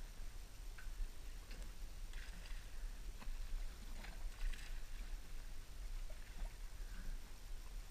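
Small waves lapping against the side of a drifting boat, with scattered light splashes over a low steady rumble.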